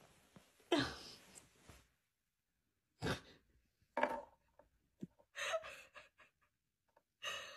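A person's short, breathy exhalations, about five of them spaced a second or so apart.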